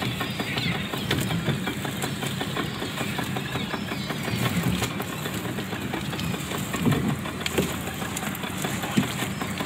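Boat engine idling steadily, under a busy clatter of small knocks and slaps as a gillnet full of fish is hauled over the side of the boat.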